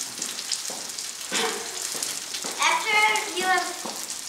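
Steak sizzling in a hot pan as it is pan-seared, a steady hiss with fine crackles.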